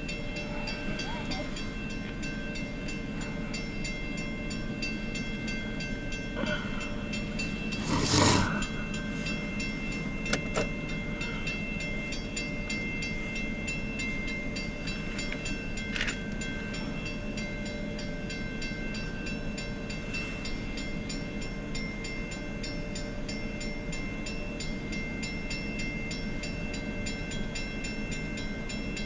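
A steady engine hum with constant tones, broken about eight seconds in by one short, loud burst of noise and a couple of faint clicks.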